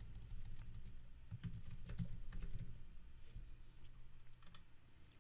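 Faint typing on a computer keyboard: a quick run of keystrokes through the first three seconds, then a couple more taps about four and a half seconds in.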